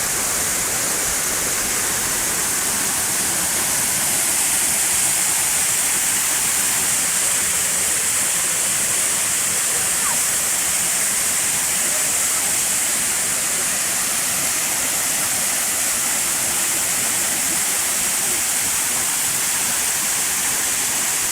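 Dzhur-Dzhur waterfall rushing: a steady, loud roar of falling water with a strong hiss, unchanging throughout.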